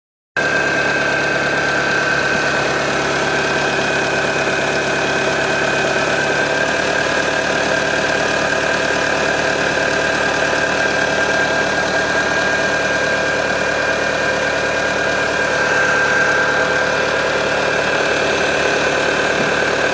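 Citroën Berlingo 1.6 HDi four-cylinder turbodiesel engine running steadily, with a steady high-pitched tone over the engine note. This is an abnormal noise that grows louder as the engine revs, which the owner thinks comes from the timing/throttle body area.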